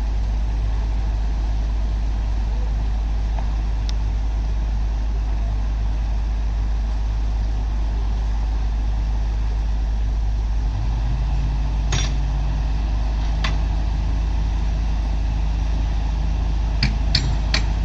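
Heavy diesel machinery running steadily, its engine pitch stepping up about eleven seconds in and again a couple of seconds later. Several sharp metallic clanks come near the end.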